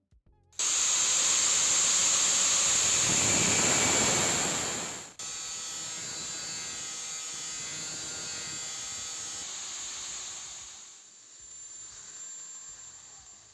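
Angle grinder with a thin cutting disc cutting slots into the steel head of an old engine valve. A loud, noisy cut lasts about four seconds, then breaks off. A quieter, steady run with a faint whine follows and fades out near the end.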